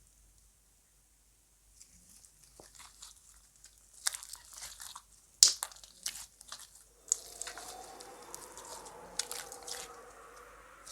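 Slime being squished and worked by hand, giving irregular crackles and pops. It starts about two seconds in, is busiest and loudest mid-way, then settles into a softer steady crackle with a faint even tone underneath.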